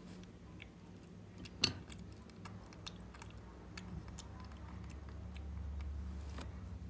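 Baby macaque biting and chewing a green candy strip: scattered small clicks and smacks, with one sharper click about one and a half seconds in.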